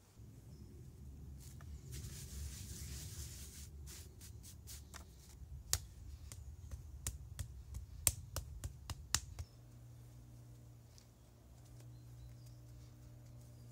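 Hand work with wet clay and a wooden brick mould on a flat stone: a run of about a dozen sharp clicks and taps over a low rumble that cuts off suddenly, leaving a faint steady hum.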